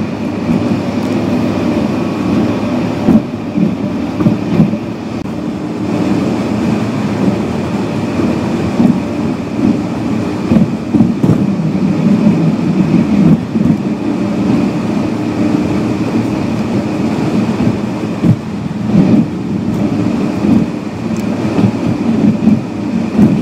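Steady low rumble of tyres and engine heard inside a car cruising on a highway, with a few brief thumps from bumps in the road surface.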